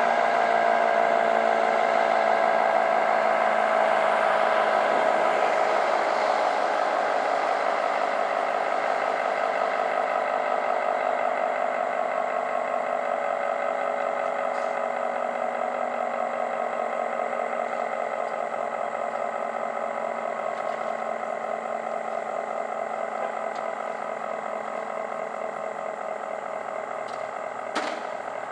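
ACA Screamer dual-tone 9/12-port siren winding down after its Alert signal, its two-note chord slowly dropping in pitch and fading. A single sharp click sounds near the end.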